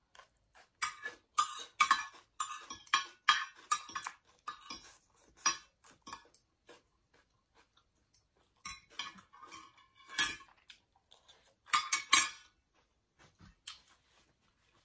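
Metal spoon and fork scraping and clinking against a plate while scooping up the last scraps of food, in uneven clusters of sharp scrapes. The loudest clatter comes near the end, as the spoon and fork are laid down on the plate.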